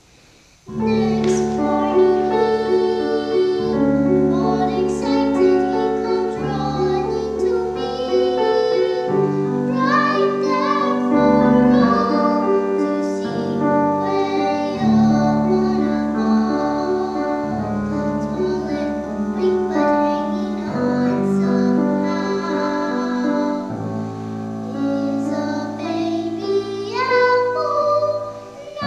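A young girl singing a song, accompanied on grand piano, which begins after a short pause about a second in.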